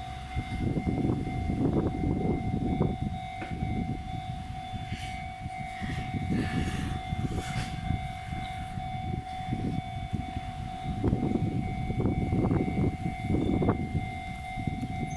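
Railway level-crossing warning alarm ringing steadily, over an uneven low rumbling.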